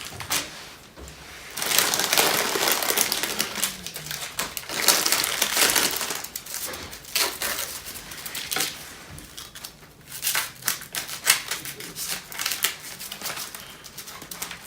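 Plastic packaging crinkling as the door handle inserts are unwrapped and handled, with scattered clicks of the plastic parts being knocked together.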